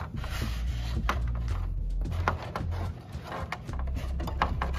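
Scattered light clicks, knocks and rubbing as 3D-printed plastic wing parts and fuselage are handled and pushed together over a carbon rod and servo wires.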